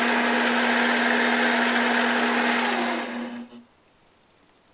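Protech 7x12 mini lathe's electric motor and spindle running steadily in reverse, a steady hum with a whirr, then switched off a little over three seconds in and winding down quickly to quiet.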